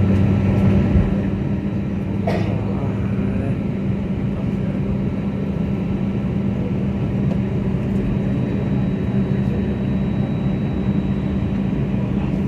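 Steady drone of an airliner cabin: engine and air-conditioning noise with an even low hum, heard from inside the cabin.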